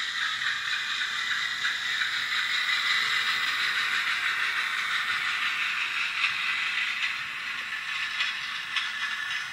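Hornby OO gauge class 08 diesel shunter model running along the track, with its sound-fitted diesel engine sound playing through a small onboard speaker and light clatter from the wheels. The sound is steady and tinny.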